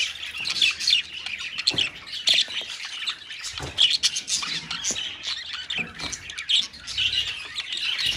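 A colony of budgerigars chattering, many overlapping squawks and warbling chirps with no pause.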